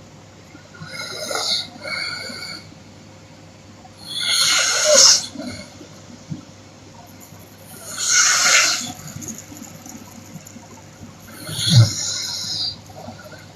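A woman snoring with her mouth open: five noisy snoring breaths, two small ones early and then three loud ones about four seconds apart. The loudest is about four and a half seconds in, and the last carries a low tone underneath.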